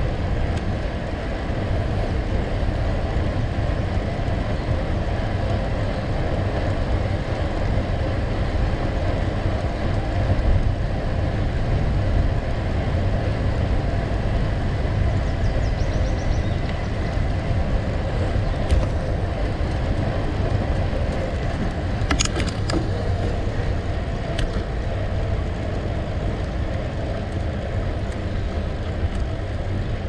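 Gravel bike rolling along a gravel road: a steady rush of tyres on gravel under a low rumble. A few sharp clicks break through about three-quarters of the way in.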